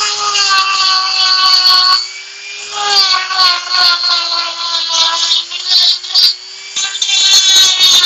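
Makita die grinder with a Kutzall carving burr whining at speed and grinding into wood, its pitch sagging slightly under load. The rough cutting noise drops out twice, about two seconds in and again near six seconds, when the burr comes off the wood.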